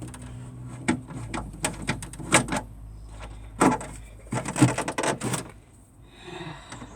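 Irregular clicks and knocks of a screwdriver working at a stubborn screw in a vehicle's plastic dashboard panel.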